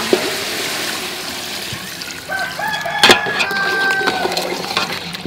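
Coconut milk poured into a pot of hot chicken curry, hissing and bubbling. About halfway through, a rooster crows for a couple of seconds, and a metal ladle knocks once against the pot.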